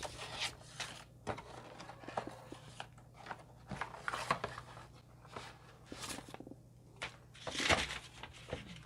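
Cardboard and paper packaging of a boxed keyboard being handled and opened: irregular rustling, crinkling and light taps, with a louder rustle near the end.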